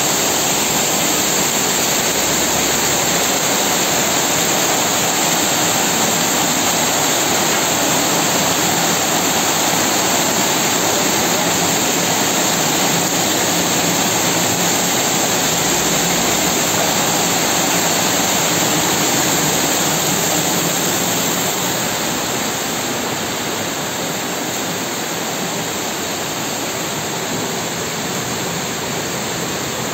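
Heavy rain pouring down, a steady, dense hiss. It drops a little in level about twenty seconds in, and near the end it is heard from indoors.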